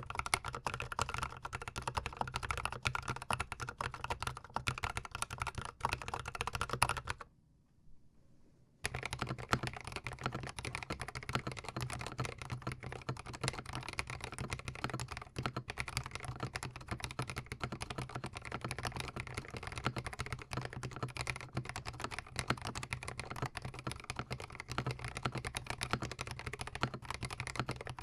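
Fast continuous typing on a GMMK Pro mechanical keyboard fitted with Novelkeys Cream linear switches, recorded very close to the keys. The typing stops for about a second and a half around a quarter of the way in, then resumes.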